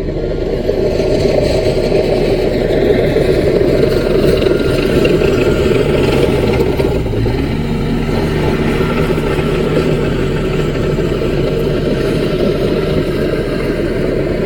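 Diesel engine of a small Caterpillar crawler bulldozer running steadily while working, with some light mechanical clatter over it.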